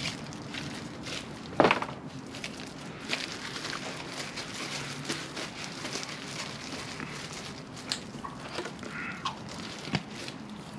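Scattered light clicks and knocks from metal motorcycle parts being handled while the front axle is greased, with one sharper knock about a second and a half in, over a faint steady low hum.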